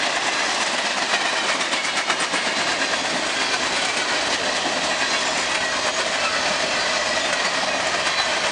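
Freight cars of a BNSF manifest train rolling past at speed: a steady rush of steel wheels on rail, with repeated clicks as the wheels pass over the track.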